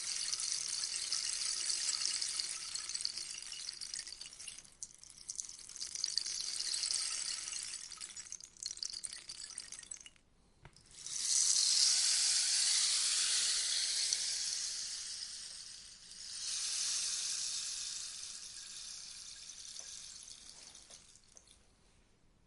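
A rainstick tipped over and over, its pebbles trickling down inside the tube in a soft, rain-like hiss. The sound comes in several swells, each fading out as the pebbles run down. After a brief near-silent gap about ten seconds in comes the loudest pour, and a last, slower cascade dies away toward the end.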